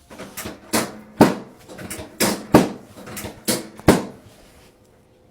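A series of sharp knocks or slaps: about six loud hits falling in three close pairs, with softer taps in between.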